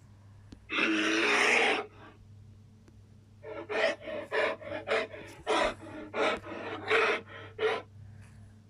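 Made-up monster's vocal sound effect: one long breathy blast about a second in, then a quick run of short panting huffs, two or three a second.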